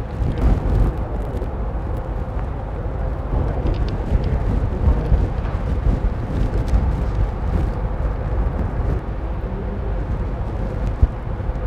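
Steady low rumbling background noise with a faint constant hum, and a few faint small clicks.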